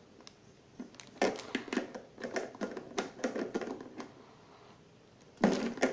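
Hands working on a plastic toilet cistern, tightening the plastic nut on its outlet pipe: scattered plastic clicks, knocks and rustles, with a louder knock near the end.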